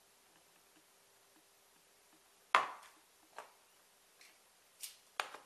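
A few sharp clicks and knocks from a metal petrol lighter being handled and put back together after refuelling. The loudest comes about two and a half seconds in, followed by four lighter ones.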